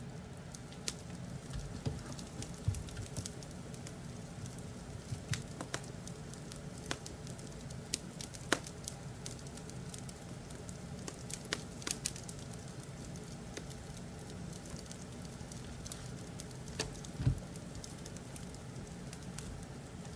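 Wood fire in a fireplace crackling: a steady low rumble of flames with irregular sharp pops and snaps, one louder pop near the end.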